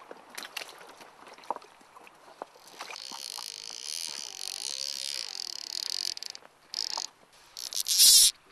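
Fly reel's ratchet drag buzzing as line is pulled off the spool. A few scattered clicks come first, then a long steady buzz, then short spurts ending in the loudest, fastest burst near the end.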